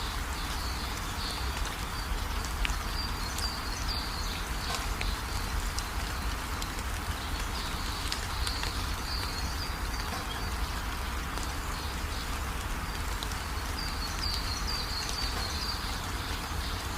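Steady rain falling, with birds chirping briefly now and then, about three seconds in, around eight seconds in, and again near the end.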